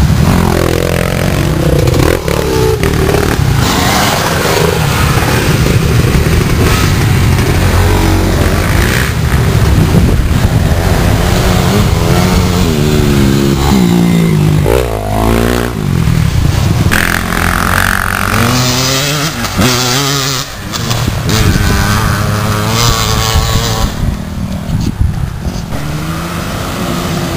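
A pack of small two-stroke dirt bikes revving and accelerating past one after another, the engine pitch rising and falling as each bike goes by.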